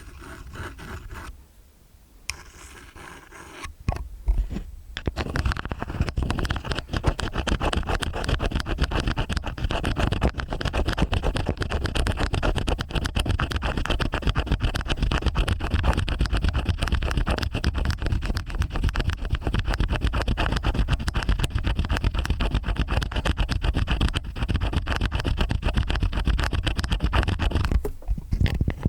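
Stainless steel ear picks scraping in both ears at once, a dense run of rapid fine scratches. Quiet and sparse for the first few seconds, then continuous until it drops out briefly near the end.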